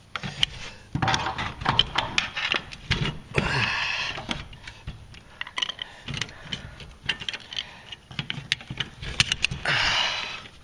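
Hands working a steel garage-door lift cable onto its fitting: irregular metal clicks and clinks, with two longer scraping rasps, one about three and a half seconds in and one near the end.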